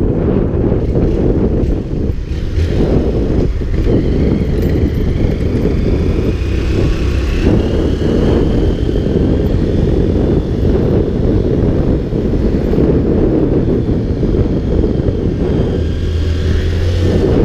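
Wind rumbling on the microphone of a camera riding on a motorcycle, with the motorcycle's engine running underneath.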